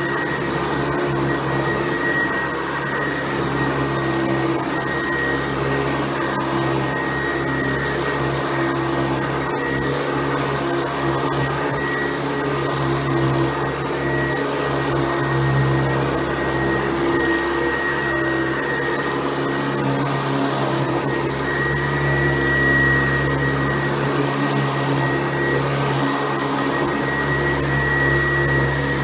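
Hoover Convertible U4349 upright vacuum cleaner with a Type A top-fill bag running steadily while cleaning, with a steady high whine over its motor hum.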